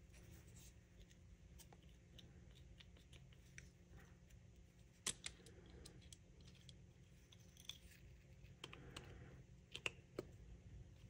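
Faint metal clicks and ticks from an old monkey wrench being worked in the hands, its knurled adjusting nut turned and its jaw slid, the mechanism freshly oiled with 3-in-One oil. The clearest click comes about five seconds in, with a few more near the end.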